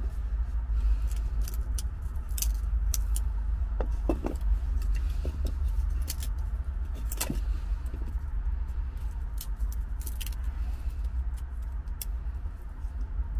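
Short, irregular scrapes and clicks of a knife and wood shavings being handled as tinder is gathered for a fire, over a steady low rumble.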